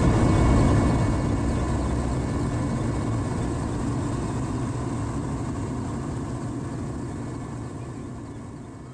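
Helicopter rotor and engine noise, a steady low rumble that slowly fades away.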